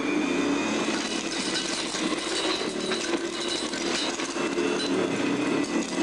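Old 1929 Hoover upright vacuum cleaner running on carpet, a steady motor hum with a whine that rises slightly in the first second as it comes up to speed. Many small clicks and rattles run through it as it picks up sprinkled dirt, ash and nuts.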